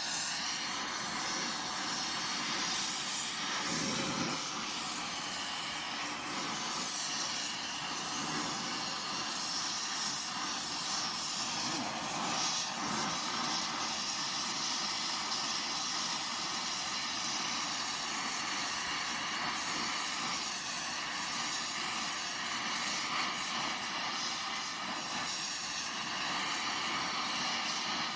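Blow torch flame burning with a steady hiss while it heats a piece of steel for forging.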